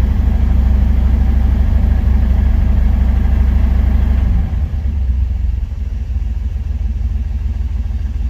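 Chevrolet 305 small-block V8 running with a misfire, skipping as it goes. About four and a half seconds in, its low rumble drops and turns quieter and more uneven, in keeping with the sudden drop in revs that the tach shows.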